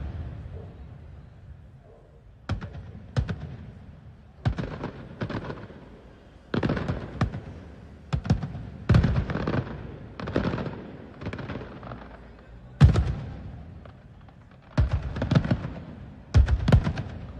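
Fireworks exploding: a string of loud bangs at irregular intervals, from under half a second to about two seconds apart, each trailing off in a rumble and crackle.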